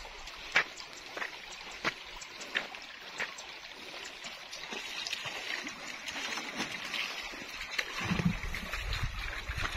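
Shallow creek water trickling and running around a stuck farm truck's wheels, with light clicks about every two-thirds of a second. A low rumble comes in near the end.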